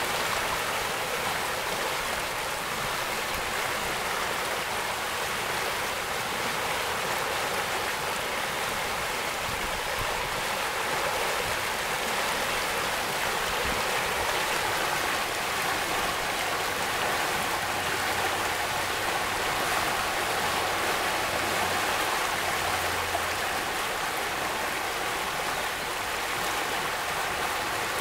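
Storm-swollen creek in flood, fast muddy water rushing over riffles in a steady, even roar.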